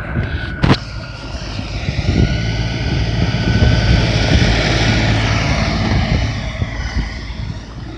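LS XR4155H compact tractor's diesel engine running, growing louder after about two seconds and easing off near the end, with a single sharp knock a little under a second in.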